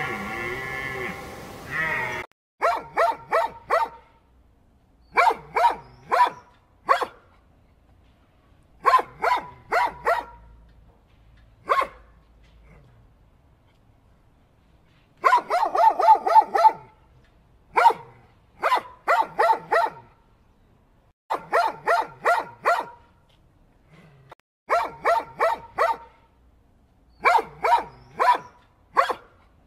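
Dog barking in quick clusters of three to five sharp barks, the clusters repeating every few seconds with short pauses between. A held, pitched sound runs for the first two seconds before the barking starts.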